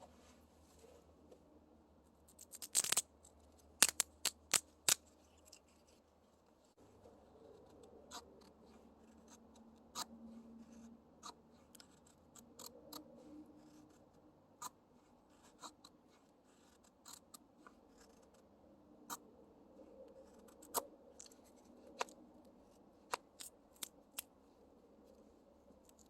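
Scattered sharp clicks and small handling sounds, with a quick run of louder clicks about three to five seconds in, over a faint low hum.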